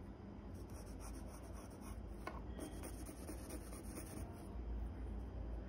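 Graphite pencil scratching on paper in repeated shading strokes, with louder spells of rapid hatching.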